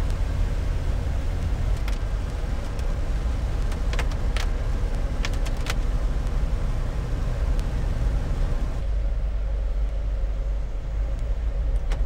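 Car driving on rain-soaked roads, heard from inside the cabin: a steady low rumble of engine and tyres with the hiss of wet pavement, which softens about nine seconds in. A few sharp ticks sound between about two and six seconds in.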